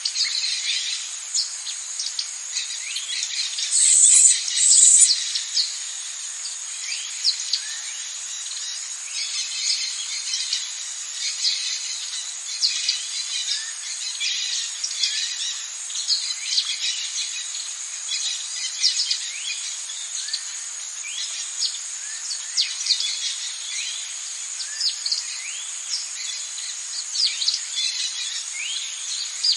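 Tropical rainforest ambience: a steady, high-pitched insect drone under many short, quick bird chirps and calls. Two brief, loud, high buzzes come about four and five seconds in.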